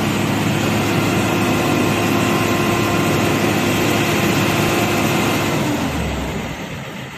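Truck-mounted crane at work: the truck's diesel engine runs at raised revs to drive the crane hydraulics, a loud steady drone, then eases off about six seconds in.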